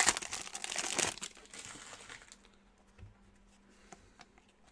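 Plastic foil trading-card pack wrapper crinkling as it is torn open and handled, loud for about two seconds and then fading, followed by a few faint light clicks.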